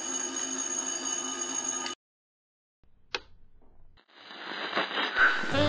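Wind-up alarm clock bell ringing steadily, then cut off abruptly about two seconds in. A single click comes about a second later, then a rising swell leads into jazz music with saxophone near the end.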